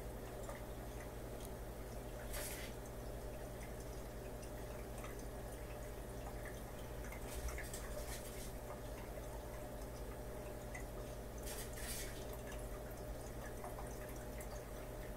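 Aquarium filter pump running with a steady low hum, water trickling and dripping over it. Three brief louder bursts of water noise come about two, eight and twelve seconds in.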